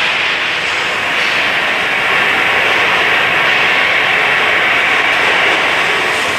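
Loud, steady rushing noise of running machinery, with no breaks or changes.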